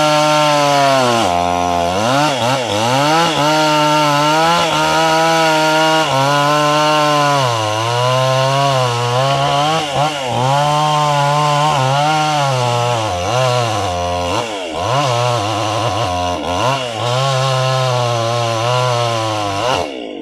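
Gas chainsaw running at high revs while cutting through wood, its engine pitch repeatedly sagging as the chain bites and loads up, then climbing back. The sound drops away sharply just at the end.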